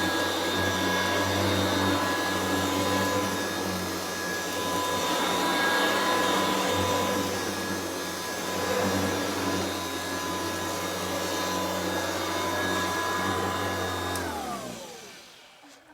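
Kirby Classic upright vacuum running steadily with its motor and fan whine, its motor running on new bearings. It is switched off about two seconds before the end, and the whine falls in pitch and fades as the motor winds down.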